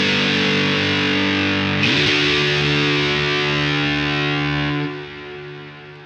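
Electric guitar played through a Southampton Pedals Indie Dream drive/reverb/delay pedal: fuzzy, saturated chords ring out, a new chord is struck about two seconds in and held. Near the end the chord is cut short, leaving a fading reverb and delay tail.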